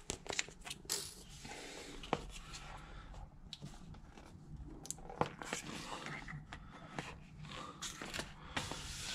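Stiff bituminous sound-deadening sheet being handled and pressed around a plastic sewer pipe: rustling, crinkling and scraping, with scattered sharp clicks and taps.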